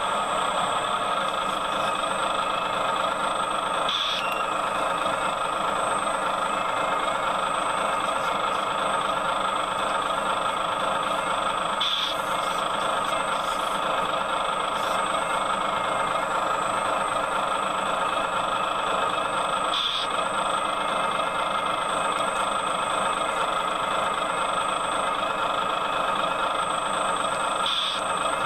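Excavator engine running steadily, with a brief high blip about every eight seconds.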